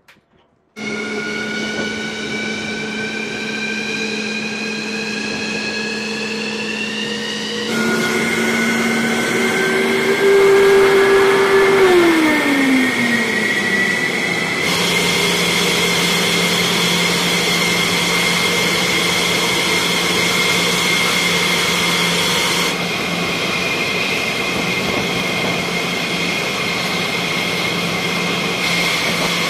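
Military jet engines running on the flight line: a steady loud rumble with a high turbine whine that rises in pitch over the first several seconds, the sound changing abruptly a few times.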